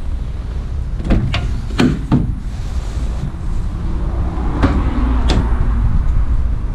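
Ford Transit panel van's doors being opened and shut: sharp latch clicks and knocks, four close together a second or two in and two more near five seconds, over a steady low rumble of wind on the microphone.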